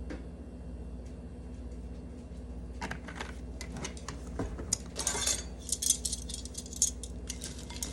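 An eating utensil mixing dried anchovies (dilis) in oil in a dish, scraping and clinking against the dish in a quick, irregular run that starts about three seconds in.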